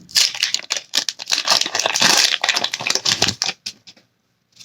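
Foil wrapper of a Pokémon card booster pack being torn open and crinkled, a dense run of crackles and rustles that stops about three and a half seconds in.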